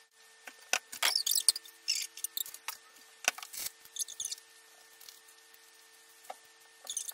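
Hands squishing and kneading wet, frothy microwaved Ivory soap sludge in a glass bowl, making irregular small squelches and clicks, busiest in the first few seconds and again briefly near the end. A faint steady hum runs underneath.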